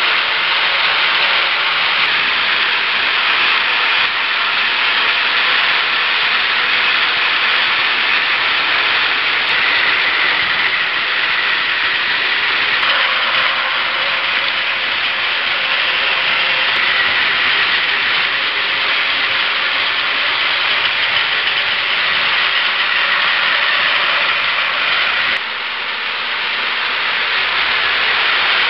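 Several battery-powered Plarail toy trains running on plastic track: a steady whirring of their small motors and gears, with the level dipping for a moment near the end.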